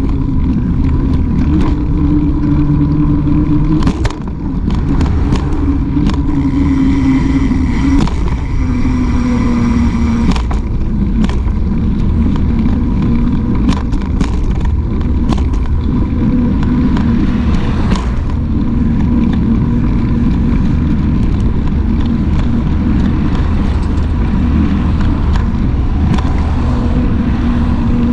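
Mountain bike rolling along a concrete sidewalk, heard from a handlebar-mounted camera: a steady loud rumble with frequent knocks and rattles as the tyres cross the slab joints, and road traffic alongside.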